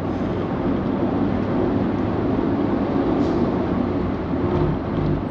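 Steady engine and road noise of a car being driven in traffic, with a continuous low rumble.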